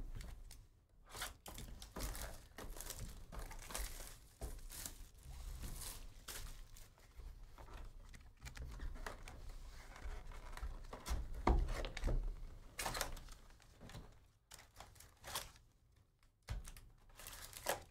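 Wrapping on a Panini Prism basketball hobby box and its card packs being torn open and crinkled by hand: irregular rips and crackles throughout.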